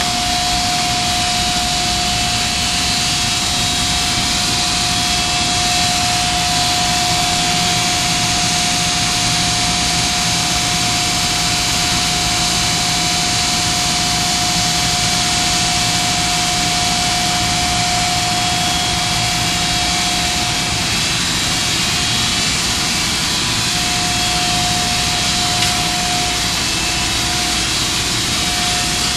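Steady, loud industrial machinery noise with a constant whine, unchanging throughout.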